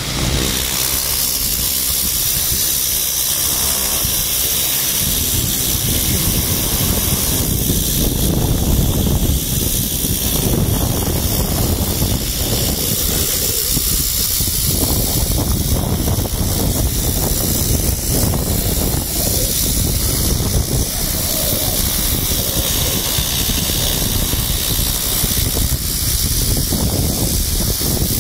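Pressure washer fitted with a rotary turbo nozzle, its jet hissing steadily as it blasts dirt and lichen off 20-year-old roof tiles.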